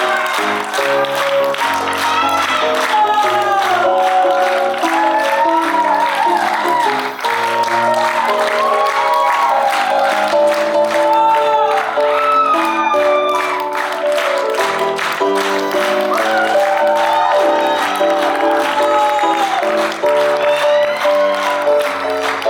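Stage musical music playing loudly, with a wavering melody line over chords, and an audience applauding along with it.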